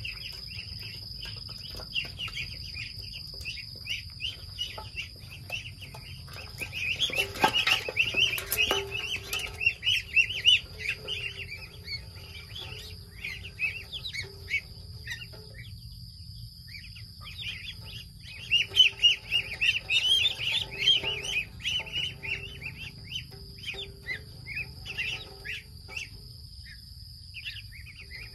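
A crowd of ducklings peeping: many short, high calls overlapping, busiest in two spells about a quarter and about two-thirds of the way through.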